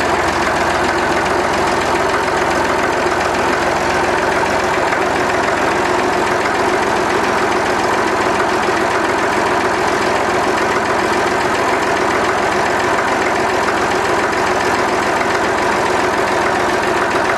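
1962 Massey Ferguson 35's three-cylinder diesel engine idling steadily while still cold, shortly after a cold start at −14 degrees.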